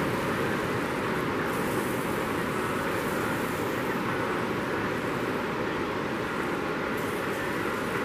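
Steady, continuous roar of Pacific Ocean surf breaking and washing up the beach.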